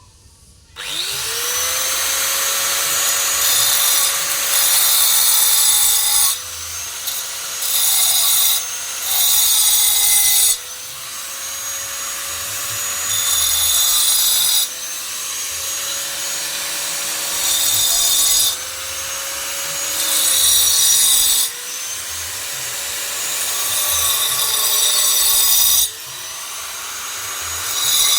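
Electric power tool spinning up about a second in, then grinding or cutting stone in repeated passes. Its motor pitch dips under load with each pass, and a harsh gritty hiss comes and goes every few seconds.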